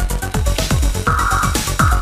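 Electronic trance-style dance music with a steady, fast kick-drum beat and synth notes.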